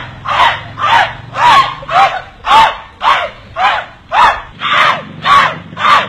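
A repeated voiced cry, chanted in an even rhythm of about two calls a second. Each call rises and then falls in pitch, like several voices shouting in unison. A faint low hum runs underneath.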